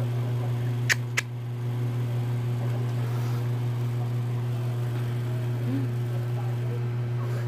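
A steady low hum, with two sharp clicks about a second in.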